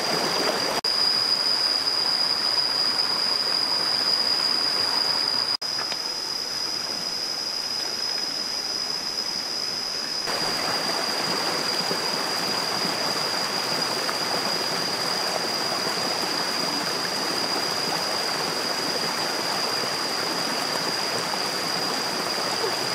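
Shallow rocky stream rushing over stones in a steady wash of water noise, with a thin steady high whine over it. The sound drops out for a split second twice in the first few seconds.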